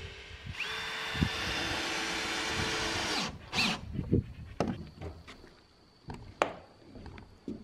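Cordless drill running steadily under load for about two and a half seconds, driving a screw down into subfloor sheathing, then stopping abruptly. A few sharp knocks and clicks follow.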